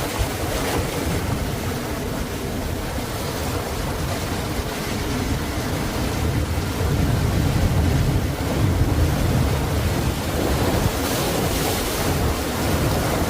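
Ocean surf: waves breaking and washing in continuously, with a deep rumble swelling in the middle and a brighter hiss of wash a little before the end.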